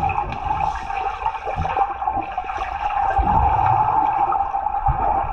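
Muffled underwater rushing and bubbling of a swimming pool, picked up by a submerged camera, with low rumbles and a few dull knocks as two people move and pull off clothes on the pool floor.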